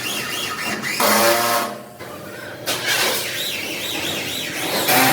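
Power tool working steel, in loud noisy bursts, one about a second in and a longer one from near the third second, with a high squeal that wavers up and down.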